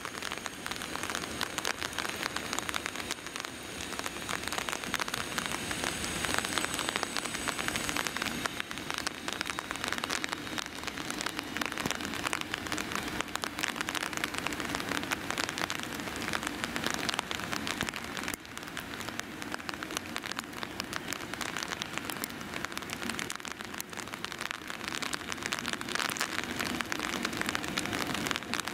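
Steady rain falling, with dense fine drop ticks close to the microphone. An electric passenger train, hauled by an FS E.402 locomotive, approaches slowly and faintly underneath.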